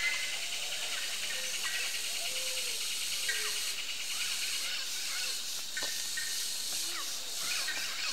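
Wetland wildlife ambience: many short chirping and whistled animal calls scattered over a steady high hiss, with a single sharp click about six seconds in.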